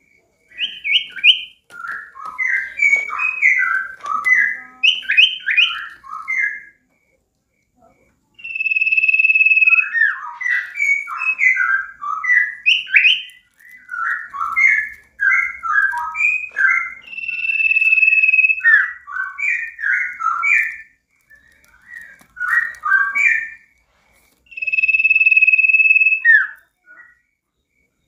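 A caged sirtu songbird in full song. It gives rapid runs of varied chattering and twittering notes, broken three times by a long, steady, high whistle, each held a second or two.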